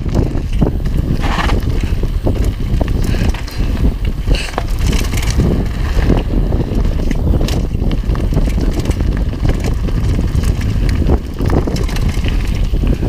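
A UMF Freddy One mountain bike rolling fast down a dirt singletrack, heard from a helmet-mounted camera: a constant low rumble of wind on the microphone, with the crunch of tyres on dirt and gravel and frequent clicks and rattles from the bike.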